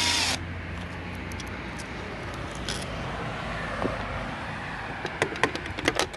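Cordless drill-driver spinning out a screw from a scooter's variator cover, stopping just after the start. Then a quieter stretch, and near the end a run of sharp metallic clinks as screws and metal parts are handled.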